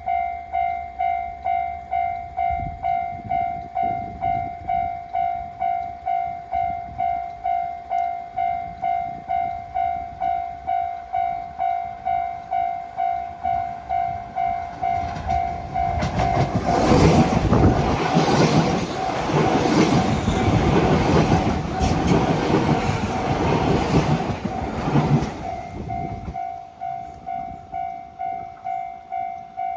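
Japanese level-crossing alarm bell dinging steadily at about two strikes a second. From about 15 seconds in, a Fukuoka City Subway 1000N series electric train passes, with its running noise and wheels clacking over the rails. The train drowns the bell until about 26 seconds in, when it fades and the bell rings clearly again.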